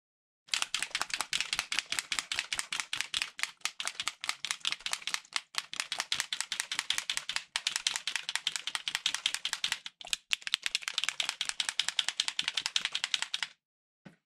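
Rapid rattling clicks, many each second, in long runs broken by a few short pauses.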